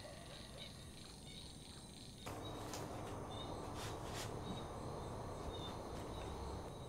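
Insects, likely crickets, chirping steadily in the background at a low level. About two seconds in a louder steady hiss of room noise comes in, with a few faint clicks.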